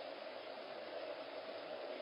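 Steady, even hiss of background noise picked up by a Nest security camera's microphone, with no distinct sounds from the kittens.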